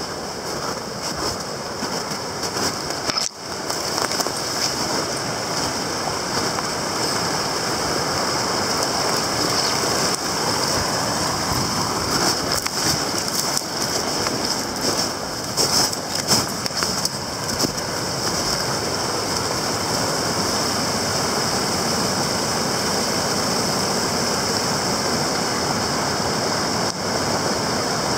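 Water rushing steadily through the rapids of a small, partly ice-covered stream, a continuous even rush.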